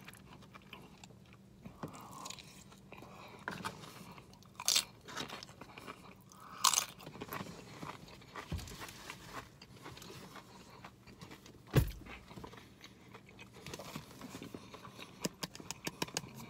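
A person eating close to the microphone: chewing and crunching mouthfuls of food, with a few louder sharp clicks.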